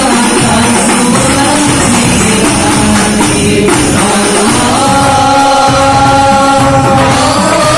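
Sholawat sung by a young singer over hadroh frame drums and tambourine, with a long held note starting about five seconds in.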